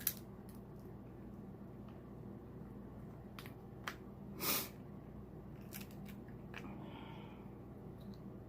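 King crab leg shell being handled and cracked open: scattered sharp clicks and snaps, with one louder crackling scrape about four and a half seconds in.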